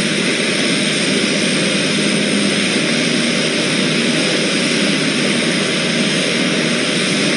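Let L-410 Turbolet's turboprop engines and propellers running steadily on the ground during an engine run-up: a loud, even rushing noise with a faint high whine.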